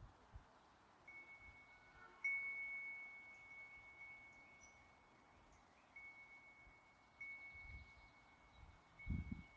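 Wind chime ringing one high note, struck about five times and ringing on after each strike, the strongest a little over two seconds in. A short low rumble near the end, with faint bird chirps.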